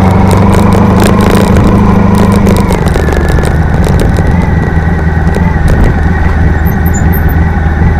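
Motorcycle engine running at low road speed, its note dropping a little and getting slightly quieter about three seconds in.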